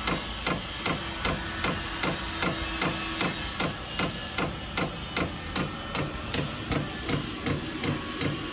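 Vevor diesel heater's fuel dosing pump ticking steadily at about three ticks a second while the heater starts up and draws in diesel, with the blower fan humming steadily underneath.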